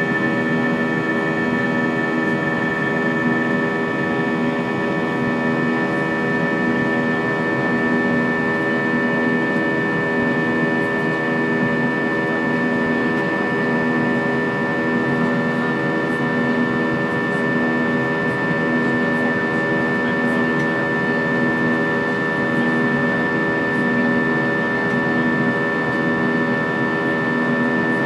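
Airbus A320 jet engine noise heard inside the cabin during the climb after takeoff: a steady drone with several fixed tones. A low hum in it swells and fades in a slow, regular beat about every two seconds.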